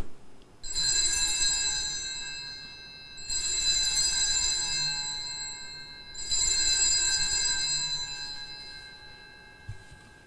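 Altar bells (Sanctus bells) rung three times, about three seconds apart, each ring fading away, marking the elevation of the chalice after the consecration at Mass.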